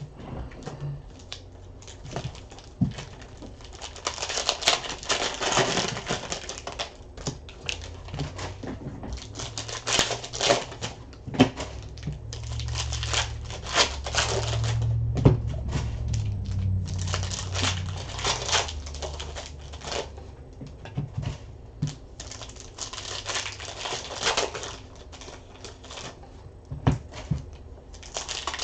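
Trading card packs being opened and handled by hand: wrappers crinkling and tearing, and cards and packaging rustling and clicking in quick, irregular bursts. A low rumble runs for several seconds in the middle.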